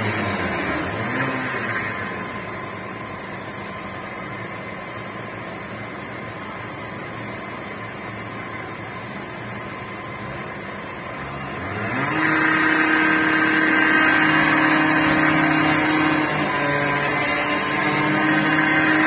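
A large vehicle engine runs steadily under a noisy background, then revs up about twelve seconds in and holds at a higher, steady speed.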